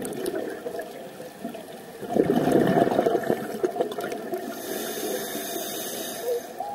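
Scuba diver breathing through a regulator underwater: a gurgling rush of exhaled bubbles about two seconds in, then a hissing inhalation near the end.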